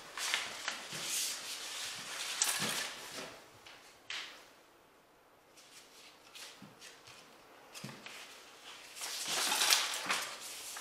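Drywall taping: paper joint tape rustling and rubbing as it is pulled off the roll and pressed by hand onto wet joint compound, heard as a series of short scraping strokes. A quiet second or so falls about halfway through, and the loudest rub comes near the end.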